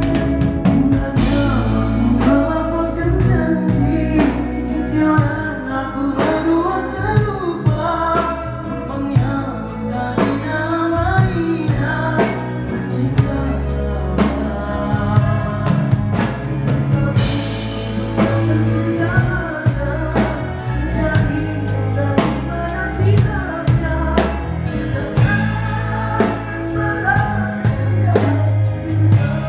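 Live rock band at a sound check, played through a concert PA: a singer's melody over drum kit, bass and guitar, with a few cymbal crashes.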